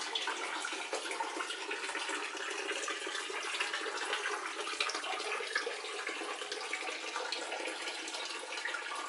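Water flowing steadily over rock inside a cave, a continuous running and trickling.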